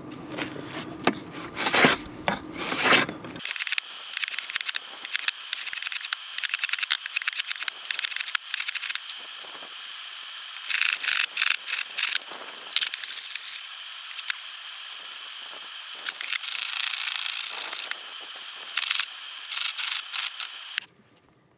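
Hand block plane shaving a small wooden strip, with many short scraping strokes and a few longer ones, stopping abruptly near the end.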